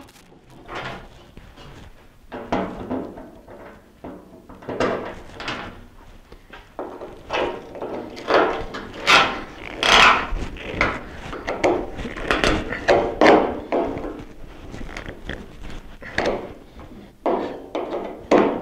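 Irregular clicks, scrapes and knocks of a hand tool on the cam-lock fasteners of a 1951 John Deere MT tractor's sheet-metal cowl as they are loosened, busiest and loudest in the middle.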